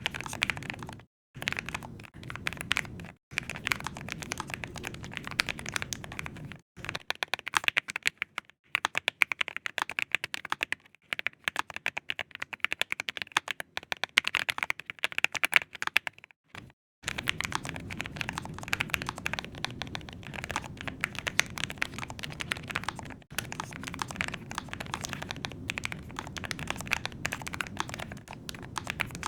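Chosfox Vero75 low-profile mechanical keyboard with Kale low-profile switches and PBT keycaps being typed on: fast, continuous thocky key clacks in several passages, broken by short pauses. In the middle passage the keystrokes are louder and more separate, and the typing stops for about half a second before resuming in a denser run.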